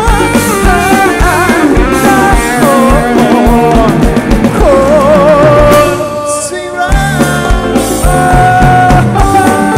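A live band plays loud amplified music: drum kit and bass under a wavering melodic lead line. A little past the middle, the drums and bass drop out for about a second, then come back in.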